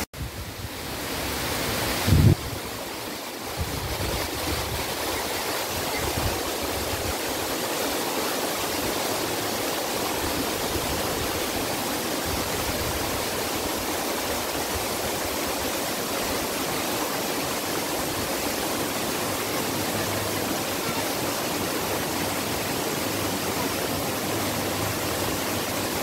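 Small forest stream rushing and tumbling over rocks in a low cascade: a steady wash of water noise. A brief low thump about two seconds in.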